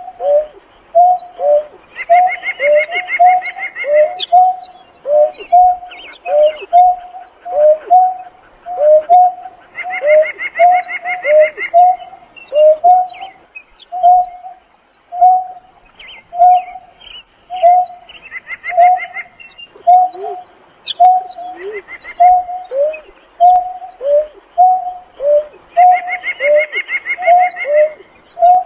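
Greater painted-snipe calling in a steady run of short, low notes, about two a second, some sliding down in pitch. A higher, rapid trill breaks in for about two seconds, roughly every eight seconds.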